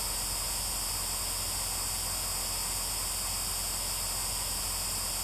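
Steady electronic hiss and static with a low hum underneath, unchanging throughout: background noise of the recording setup, with no distinct event.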